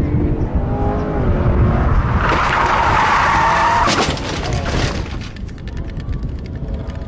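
Chevrolet Corvette's V8 engine running under power, then a loud tyre skid from about two seconds in that lasts some three seconds as the car slides sideways, followed by crackling of dirt and gravel as it runs off the pavement.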